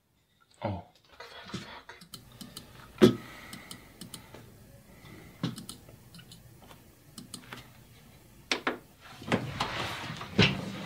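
Typing on a computer keyboard: scattered key clicks with a louder knock about three seconds in. Near the end comes a longer rustling noise.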